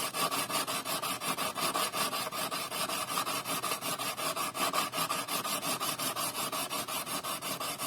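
Back of a steel plane iron scraped rapidly back and forth on wet 180-grit sandpaper over glass, a steady rasping rub in quick, even strokes of several a second, flattening the back of the iron.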